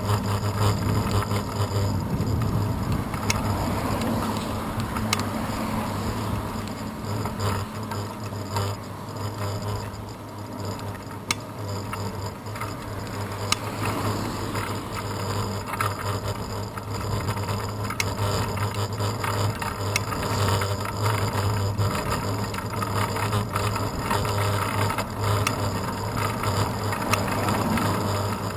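Bicycle riding on asphalt, picked up by a handlebar-mounted action camera: a steady rumble of tyre and road vibration, with a constant low hum and scattered rattling clicks as the bike goes over small bumps.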